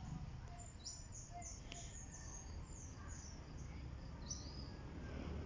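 Faint chirping of birds: a scatter of short, high notes, each falling in pitch, heard over a low steady hum.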